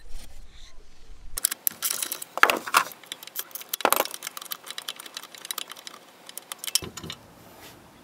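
Socket ratchet clicking in quick runs as an exhaust mounting bolt is loosened, with sharp metallic tool clatter. It starts a little over a second in and dies away near the end.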